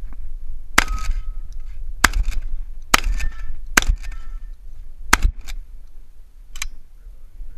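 About six shotgun shots of birdshot fired roughly a second apart, two of them in quick succession about five seconds in. After some shots comes a short ringing tone from steel targets being hit.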